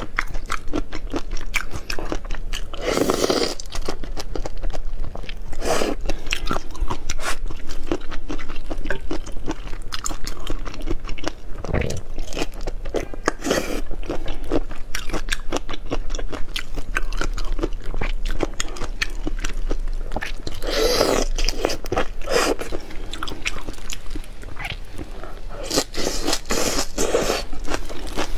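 Close-miked biting and chewing of crunchy seafood: a dense, unbroken run of crackling crunches, with several louder bites scattered through.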